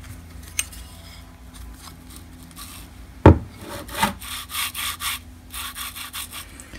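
Aluminium timing pulley set into its bearing on an aluminium plate with a sharp metal knock about three seconds in, then a second knock and a quick series of short scraping rubs as it is twisted back and forth by hand.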